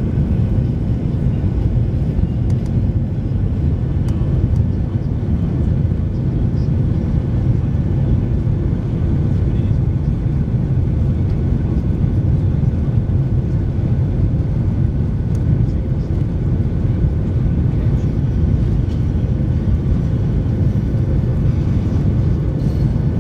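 Airbus A310 cabin noise as the airliner rolls along the runway: a steady low rumble of jet engines and wheels, with a faint steady hum above it.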